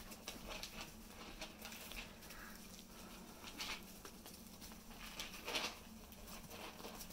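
Four-week-old corgi puppies padding and scrabbling about on washable floor pads, faint scattered scratchy clicks and rustles of small paws, with two louder scrapes about three and a half and five and a half seconds in.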